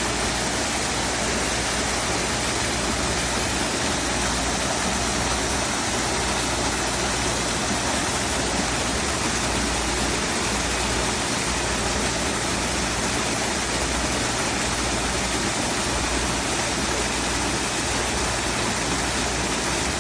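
Waterfall: water falling in a steady, even rush.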